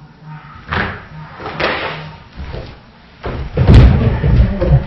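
Two knocks on cardboard boxes, then about three seconds in a loud crash and clatter as a stack of cardboard boxes with a cat on it falls down.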